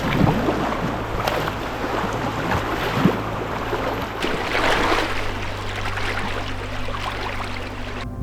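River water rushing and splashing around a packraft, a steady rush with many small irregular splashes.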